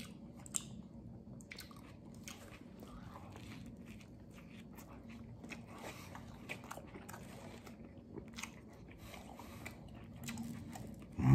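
Close-up mouth sounds of a person eating a toasted vegetarian sub sandwich on wheat bread: crunching bites into the crust and moist chewing, with scattered small clicks and crackles. A short loud sound comes right at the end.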